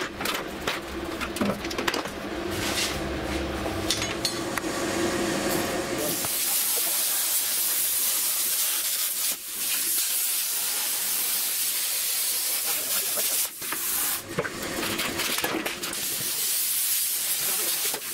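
Handheld plasma cutter cutting sheet steel: a steady loud hiss of the air-plasma arc starting about six seconds in, breaking off briefly a couple of times. Before it, scattered clicks and knocks of metal being handled.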